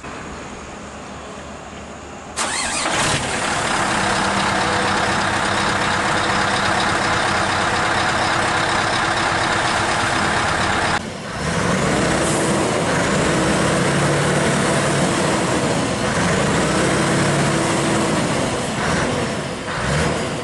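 Scania R580 truck's V8 diesel engine starting about two seconds in and then running loudly at its vertical exhaust stack. In the second half the engine note rises and falls repeatedly.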